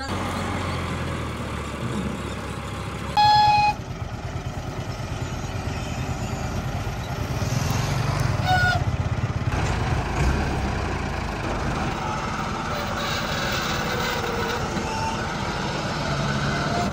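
Tractor diesel engine running steadily, with a short, loud pitched tone like a horn about three seconds in.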